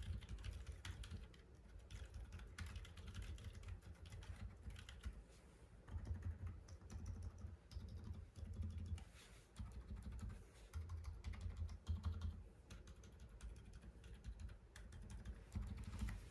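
Typing on a mechanical keyboard fitted with Outemu mute yellow switches. The key presses come fast, in an uneven stream, with no break, and sound as soft thuds more than sharp clicks.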